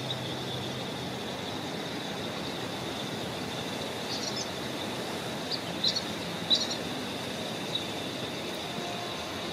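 Outdoor background: a steady wash of distant noise with a constant thin high-pitched tone. A few short bird chirps come in around the middle.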